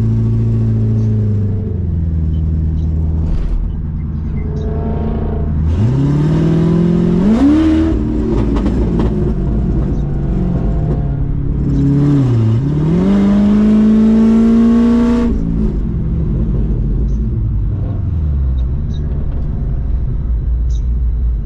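Straight-piped C6 Corvette V8 with long-tube headers, very loud: it cruises, drops off, then revs up hard about six seconds in, its pitch climbing, dips once around twelve seconds in and climbs again, and cuts off near fifteen seconds, settling back to a low rumble.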